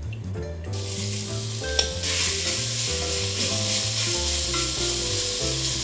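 Mushrooms sizzling as they fry in oil in an enamel pot, a hiss that starts under a second in and grows louder about two seconds in. One sharp clink comes just before the hiss swells.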